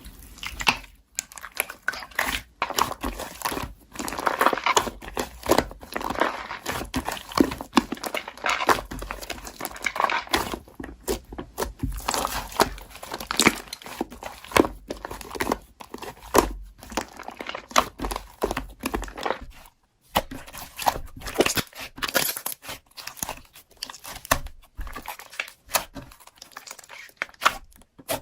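Slime being squeezed and stretched by hand, giving dense, rapid crackling and popping with short pauses.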